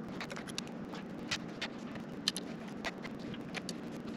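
A dozen or so small, sharp, irregular clicks and taps as the MacBook Pro's tiny bottom-case screws are taken out and set down in a plastic parts tray on the aluminium case, over a faint steady low hum.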